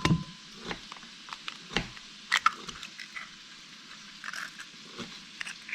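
Eggs cooking in a pan with a faint crackle, broken by scattered light clicks and taps, a few of them sharper.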